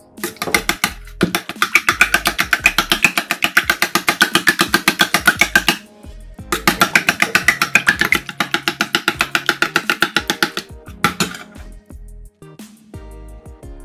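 Metal spoon beating eggs in a stainless steel bowl: rapid, even clinking, about seven strikes a second, in two runs with a short break about six seconds in. It stops a few seconds before the end, over background music.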